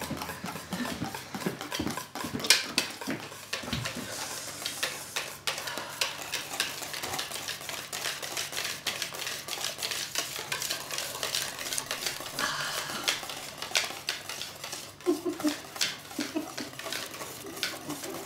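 A utensil stirring and beating in a stainless steel mixing bowl, making rapid, irregular metallic clinks and scrapes against the bowl.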